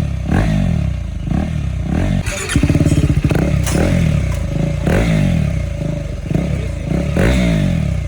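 KTM Duke 390's single-cylinder engine revved in a string of quick throttle blips, each falling back, with one longer held rev about a third of the way in. It is running on an aftermarket exhaust being tried out for its loudness.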